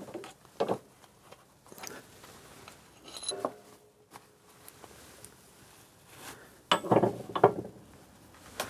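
Metal engine parts being handled on a workbench: scattered clinks and knocks, one with a short metallic ring a few seconds in, and a cluster of louder knocks near the end.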